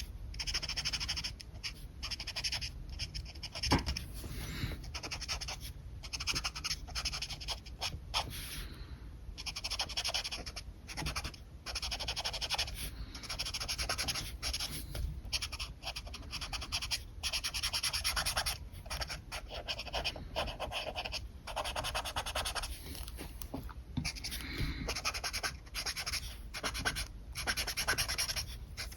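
Alcohol marker nibs stroking and scratching across paper in many short strokes, with brief pauses between them.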